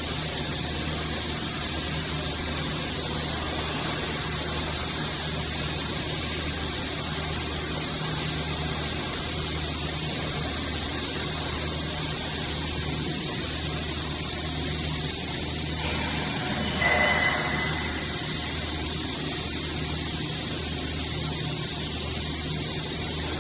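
Hydraulic power unit of a ship's pilot door running steadily as it drives the folding door open: a low hum under a constant hiss. A brief squeal about two-thirds of the way through.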